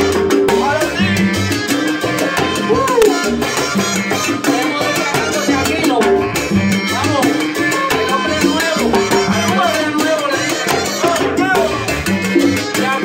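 Live salsa band playing, with a lead singer's voice over congas, timbales and hand percussion.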